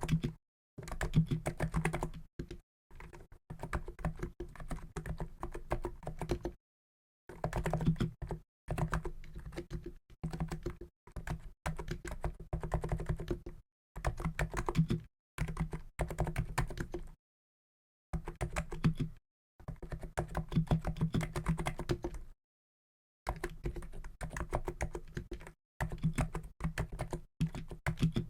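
Typing on a COX Endeavour keyboard with NIZ electro-capacitive (EC) switches of 50 g weight: fast, continuous runs of keystrokes, broken by short pauses every few seconds.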